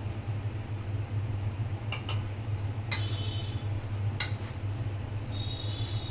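A steel spoon clinking against stainless-steel bowls a few times, some strikes leaving a short high metallic ring, over a steady low hum.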